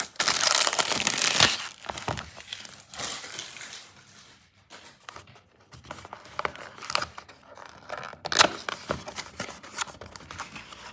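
Cellophane wrapper crinkling as it is pulled off a paperboard perfume box, loudest for the first second and a half. Then softer rustling and light clicks of cardboard as the box's tucked top flaps are worked open, with one sharp snap about eight seconds in.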